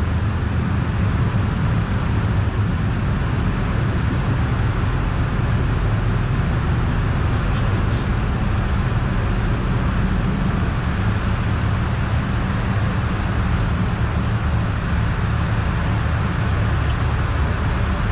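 Steady cabin noise of a Piper Aerostar 700 twin-engine aircraft: engine drone and airflow, even and unchanging, heaviest in the low range.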